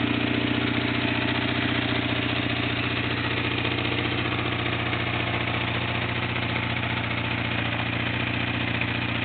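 1997 Kawasaki 600 Eliminator's inline-four engine idling steadily after restoration, running smoothly at an even speed.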